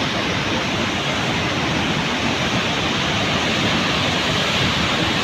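Steady rush of the Teesta river in flood, a fast muddy torrent swollen by a cloudburst pouring through the valley.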